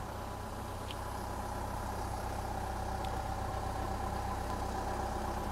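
Steady mechanical drone of airport ramp machinery running near a parked jet airliner: a low hum with a constant whine on top.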